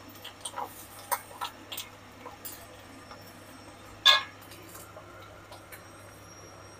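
Egg frying in oil in a wok, giving scattered sharp crackles. About four seconds in, a spatula knocks and scrapes against the wok once as it slides under the omelette to turn it; this is the loudest sound.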